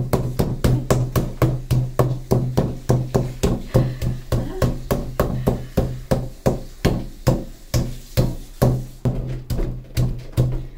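Metal meat mallet pounding a chicken breast through plastic wrap on a wooden butcher block, with quick, even strikes about three or four a second over a steady low hum.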